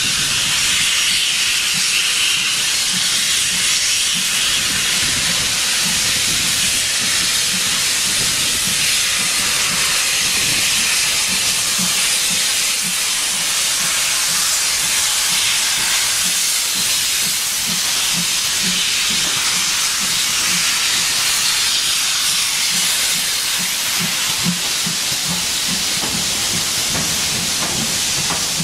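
Steam locomotive letting off steam: a loud, steady hiss throughout, with a rapid low pulsing beneath it in the second half.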